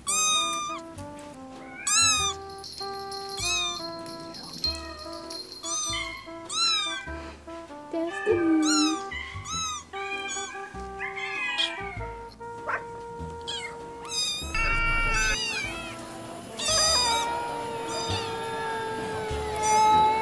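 Cat meows coming one after another, every second or two, over music with held notes that step in pitch and a low pulse. Near the end a long held tone slides slowly down beneath the meows.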